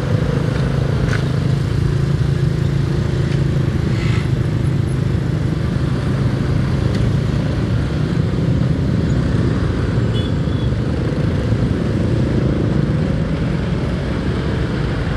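Motorcycle engine running steadily under way, with road and traffic noise around it.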